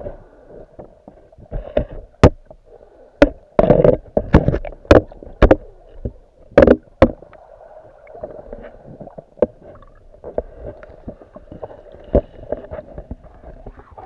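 Muffled underwater sound recorded by a submerged camera: a low rush of moving water with irregular sharp clicks and knocks, bunched between about four and seven seconds in.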